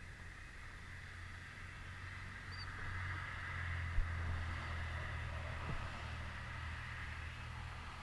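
A low, muffled rumble that swells toward the middle and then fades, heard through a waterproof camera housing, with one soft knock about four seconds in.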